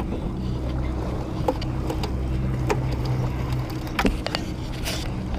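Boat engine idling with a steady low hum, with a few light clicks and knocks from handling on deck.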